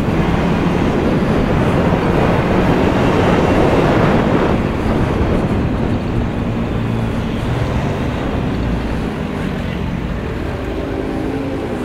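Motorcycle riding noise: heavy wind rush on the bike-mounted microphone over the engine and tyres. The wind eases after about five seconds as the bike slows into traffic, leaving a steadier low engine hum.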